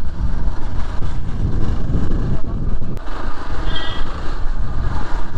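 Motorcycle being ridden: its engine running under a steady wind rumble on the microphone, with a short high tone about four seconds in.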